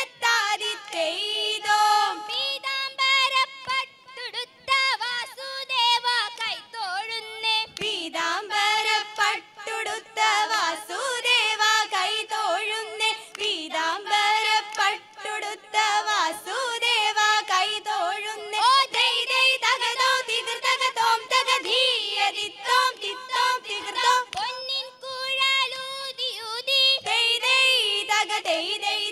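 Group of women singing a Malayalam vanchippattu (Kerala boat song) together, keeping time with hand claps.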